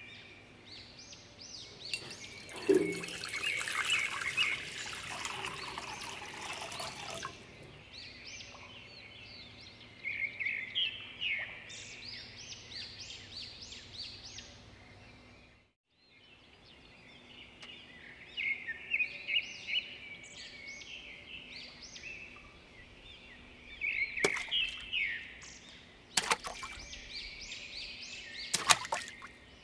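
Birds chirping throughout, with water pouring into a glass bowl for several seconds near the start and a few sharp clicks near the end.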